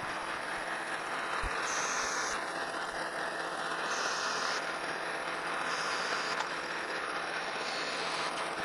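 Metal lathe running with its tool cutting a turning pass on a small brass round-stock blank, a steady machining sound. A faint whine falls in pitch from about two seconds in to about four and a half seconds.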